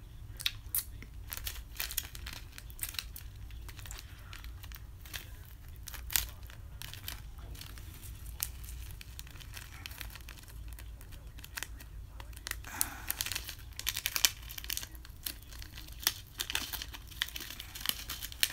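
Small instant-ramen seasoning packet being crinkled and torn open by hand: irregular sharp crackles of thin packaging, busiest in the last few seconds.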